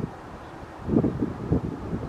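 Wind buffeting the microphone in irregular low gusts, stronger from about a second in.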